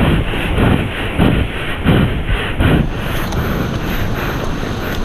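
Surf surging and washing over rocks, with wind buffeting the microphone. For about the first three seconds a rhythmic series of louder rushes comes about twice a second, then the noise settles to a steady wash.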